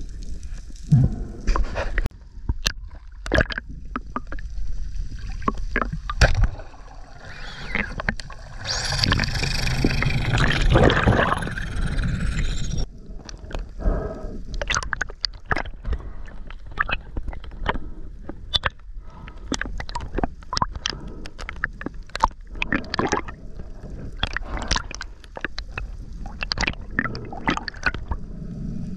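Water gurgling and sloshing with scattered clicks and knocks, and a louder rushing gurgle from about eight seconds in that cuts off suddenly about five seconds later.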